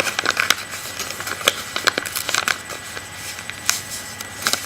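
Origami paper crackling and crinkling in quick, irregular bursts as it is folded and creased by hand.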